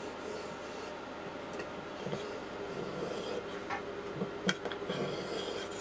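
Homemade center-finding gauge drawn along the edge of a pine board, its pencil scribing the centre line between two guide bearings: a faint rubbing scratch, with a few light clicks of the tool against the wood, the sharpest about four and a half seconds in.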